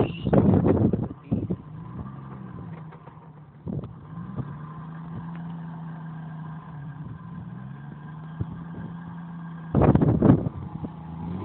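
1994 Jeep Wrangler's 4.0-litre inline-six engine running at low revs as the Jeep crawls over a dirt ledge, its note rising and falling a little with the throttle. A couple of loud noisy bursts come in the first second and again about ten seconds in.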